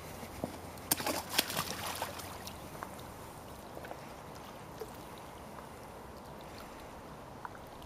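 Shallow lake water splashing as a wading angler steps into the margin and lowers a wet mesh fish sling into the water, with a burst of splashes about a second in. Fainter sloshing and trickling follows.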